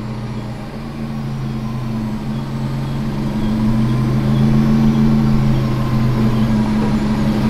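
Toyota pickup's engine idling with a steady low hum, growing gradually louder over the first few seconds while the steering is turned toward full lock.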